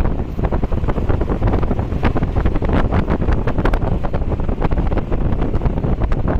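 A vehicle travelling on a rough road: a steady low rumble with frequent small rattles and knocks, and wind buffeting the microphone.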